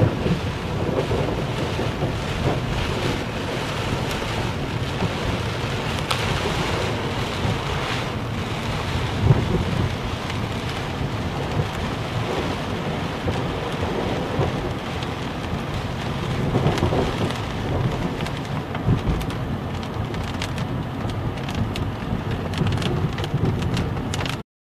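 Heavy rain pouring steadily in a thunderstorm, with low rumbles of thunder swelling now and then.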